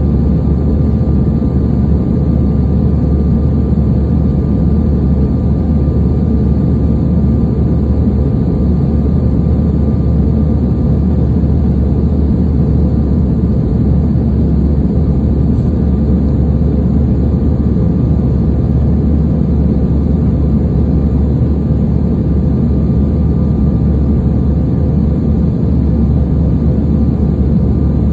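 Steady cabin noise inside a Sukhoi Superjet 100 in flight: a deep, even rumble from its SaM146 turbofan engines and the airflow, with a faint steady whine over it.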